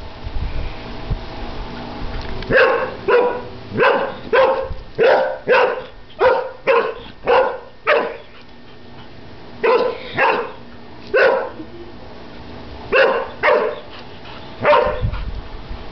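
A year-old Airedale terrier barking at bubbles in a pool, about eighteen barks in volleys. A fast run of barks comes a few seconds in, and shorter groups follow after pauses of a second or two.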